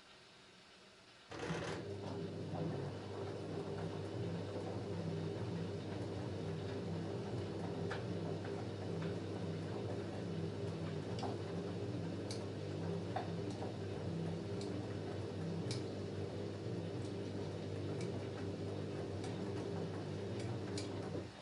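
LG F10A8HDS5 front-loading washing machine starting up suddenly about a second in and running with a steady mechanical hum, with a few light sharp clicks scattered through it, then stopping abruptly just before the end.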